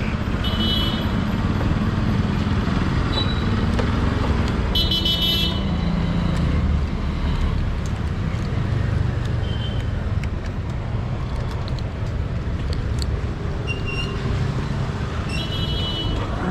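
Motorcycle riding through road traffic with a steady engine and road rumble. Several short vehicle-horn toots sound over it, the loudest about five seconds in, with others about half a second in and near the end.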